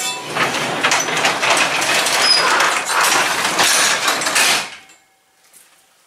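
Sectional overhead garage door pulled down by hand, its rollers rattling and rumbling along the metal tracks for about four and a half seconds, then stopping suddenly as the door shuts.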